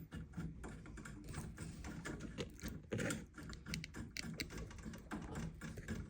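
Rapid, irregular light clicks and taps of plumbing parts and hand tools being handled, with one louder knock about three seconds in.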